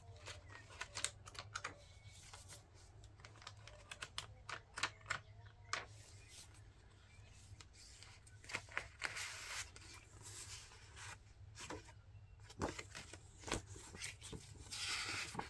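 Paper pages of a handmade junk journal being turned and handled: scattered light taps and clicks with rustling, and a longer rustle near the end as a loose sheet is lifted out. A low steady hum runs underneath.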